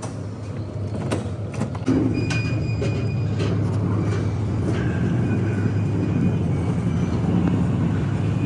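The bridge door clicks open about a second in. From about two seconds in, a steady low outdoor rumble takes over, with a brief thin high squeal soon after.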